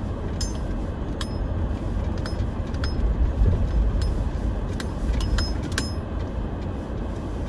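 Toyota 4Runner driving slowly over a rough dirt trail, heard from inside the cabin: a steady low engine and tyre rumble, with scattered clicks and rattles as it bumps along.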